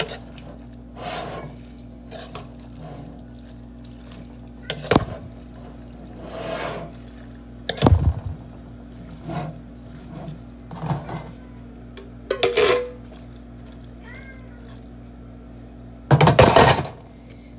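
Spice jars and shakers being handled over a cooking pot as seasonings are shaken in: scattered knocks, taps and short rustles, with a longer, louder rustle near the end. A steady low hum runs underneath.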